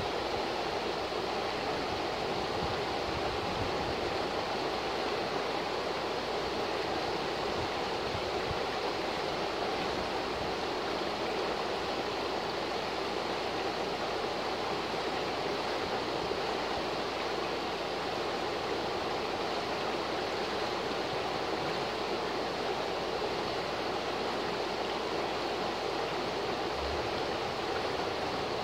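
A fast, shallow river rushing over rocks in riffles: a steady, even rush of water.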